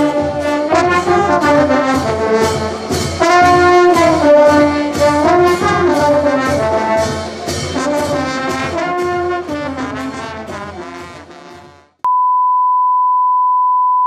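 Brass band playing a marinera tune over a steady drum beat, fading out; about twelve seconds in it cuts to a steady high test-tone beep.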